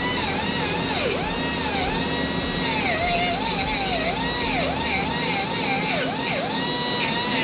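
Power grinder whining, its pitch sagging and recovering again and again as it is pressed into the metal, grinding down the ridge on the end of a starter's Bendix shaft to free a stuck nut.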